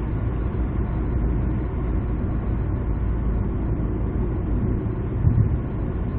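Steady low rumble of engine and tyre noise inside the cabin of a 2003 Renault Samsung SM5 LPG sedan cruising on the road. The rumble swells briefly about five seconds in.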